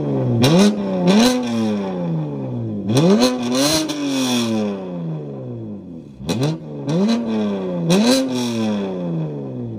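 A car engine revved hard six times, climbing quickly and then sinking slowly back toward idle each time. The fourth rev is held high for about a second. Sharp cracks come at the tops of several revs, and the last rev dies away near the end.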